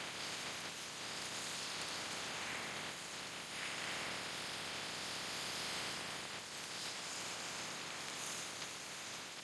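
Steady rushing hiss of wind and of water streaming along the hull of a sailing yacht under sail, swelling and easing a little.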